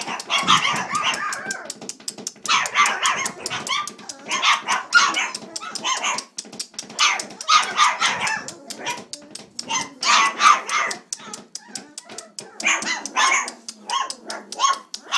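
A litter of 3.5-week-old Bouvier des Flandres puppies yipping and barking in repeated high-pitched bursts, several voices overlapping, with many small sharp clicks under them.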